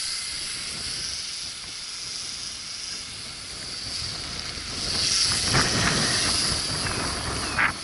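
High whine of an M9916 toy quadcopter's propellers over wind buffeting the microphone, the wind rumble growing louder about five seconds in.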